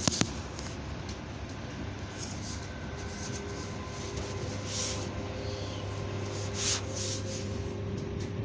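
Train running, heard from inside the passenger carriage: a steady low rumble and hum, with faint steady tones coming in about three seconds in. A phone rubs and rustles against the seat fabric, and two sharp clicks sound right at the start.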